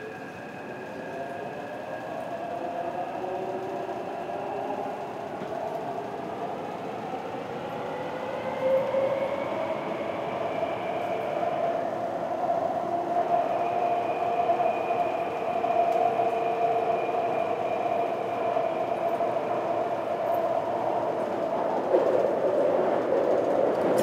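Taipei Metro train running through a subway tunnel: the whine of its electric traction motors rises in pitch as it gathers speed over the first half, then holds steady, over a steadily growing rumble of wheels on rail.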